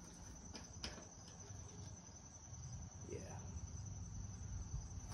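Quiet handling noises, a few faint clicks and rustles, as a push mower's oil dipstick is handled. A steady, faint, high-pitched trill runs underneath.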